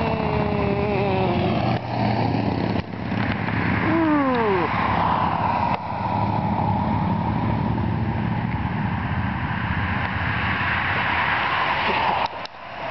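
A column of cruiser motorcycles, Harley-Davidson V-twins among them, riding past. Single bikes go by with their engine pitch falling, near the start and again about four seconds in, followed by the steady rumble of a long line of bikes approaching.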